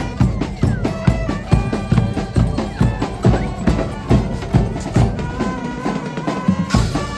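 Music played loud through a sound system, with a steady drum beat and heavy bass. Near the end the bass drops out for about a second and a half, then comes back with a cymbal-like crash.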